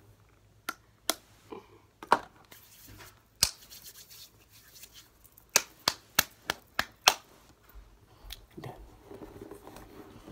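Hands working in hand sanitizer: scattered sharp slaps and clicks, with a quick run of about six, roughly three a second, a little past halfway.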